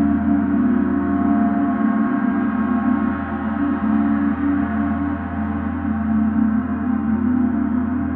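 Large suspended gong ringing, a sustained dense mix of many overlapping tones that gently swells and ebbs, with no single strike standing out.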